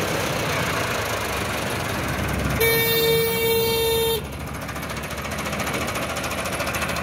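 Massey Ferguson 385 tractor's diesel engine labouring under heavy load as it drags a loaded trolley with its front wheels lifted. A vehicle horn gives one steady blast of about a second and a half in the middle and cuts off sharply. After the horn the engine continues with a fast, even chugging.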